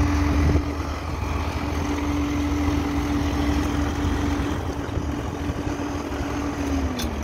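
Concrete pump truck running steadily while it pumps concrete through its boom hose, a steady engine rumble with a whine that drops in pitch near the end.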